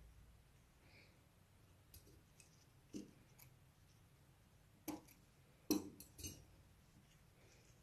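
Faint scattered clicks and taps of a small tool and paper against a hard concrete floor as a small paper flower is worked and set down, with a quick cluster of louder taps past the middle.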